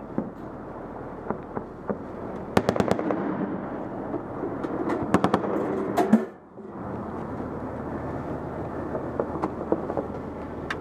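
Two short bursts of fire from an M2 .50-calibre heavy machine gun, about two and a half seconds apart, with a few single cracks around them, over the steady running of an armoured vehicle's engine.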